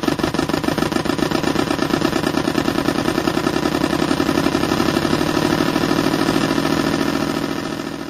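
Simulated marine engine sound from a programmable electronic engine sound unit for model boats, played through its small speaker as a steady, rapid chugging beat. It fades out near the end.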